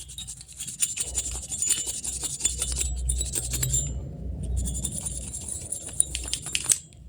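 CPU heatsink being cleaned by hand: scratchy scraping and light metallic clinking over its fins, in two spells with a short break about four seconds in.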